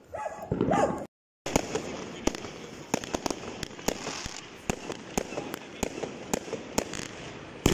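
Fireworks and firecrackers going off all around: a dense, irregular run of sharp bangs over steady crackling. The sound cuts out completely for a moment about a second in.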